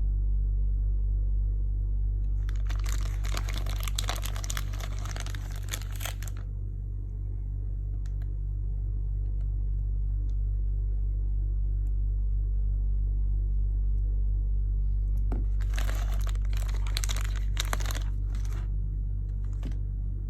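Plastic toy packaging crinkling and rustling as it is handled, in two stretches a few seconds long, over a steady low hum.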